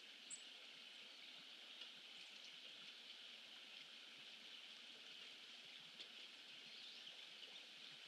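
Near silence: a faint, steady outdoor hiss picked up by the pond camera's microphone, with one brief high chirp about a third of a second in.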